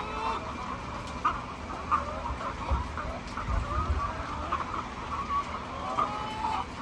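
A flock of laying hens clucking and calling, many short overlapping calls at once.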